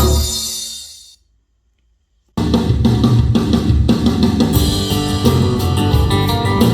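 Music test tracks played through a two-way coaxial car speaker: an electronic dance track fades out about a second in, then after a second of silence a drum-and-guitar rock track begins.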